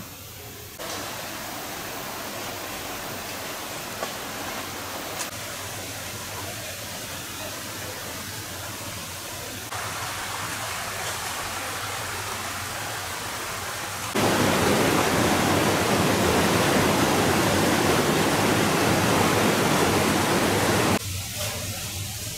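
Rushing creek water, a steady hiss that steps up in loudness about a second in, again about ten seconds in, and is loudest from about fourteen to twenty-one seconds. Two brief knocks sound around four and five seconds in.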